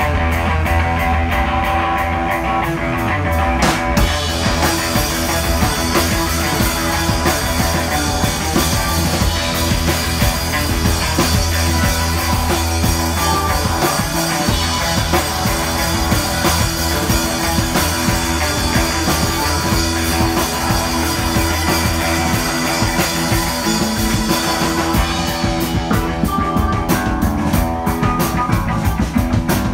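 Live instrumental psychedelic rock band playing electric guitar, bass guitar, keyboard and drums; the cymbals and full drum kit come in about four seconds in.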